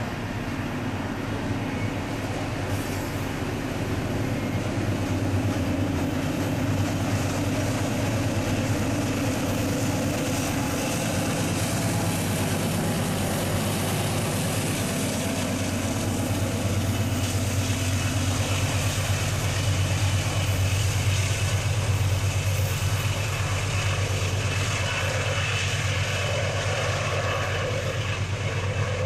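Canadian Pacific freight train of grain hopper cars rolling past: steel wheels running on the rails over the steady drone of diesel locomotive engines.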